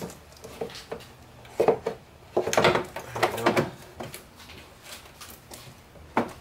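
Plastic air intake snorkel and its cover on a BMW E90 being worked into place by hand: a run of plastic knocks, clacks and rubbing, busiest from about one and a half to four seconds in, with one more sharp knock near the end.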